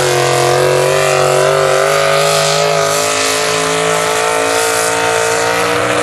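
Pro stock mini truck's engine running at high, steady revs under full load while pulling a weight-transfer sled, its pitch wavering slightly.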